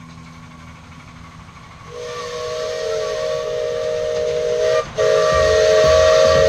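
A live-steam locomotive's whistle blowing a chord of several notes at once, with steam hiss. It starts about two seconds in, breaks briefly, then sounds again louder in a second long blast.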